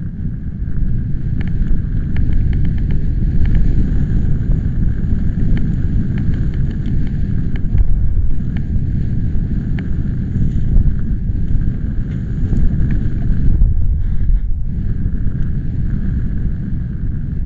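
Storm wind buffeting the microphone, a loud, unsteady low rumble, with scattered sharp ticks throughout.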